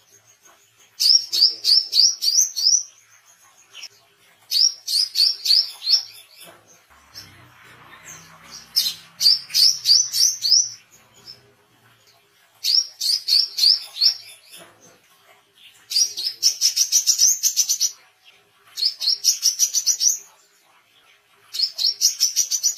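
Male brown-throated sunbird (wiceh) singing: short phrases of rapid, sharp rising high notes, about four a second, repeated about seven times with pauses of a second or two between phrases.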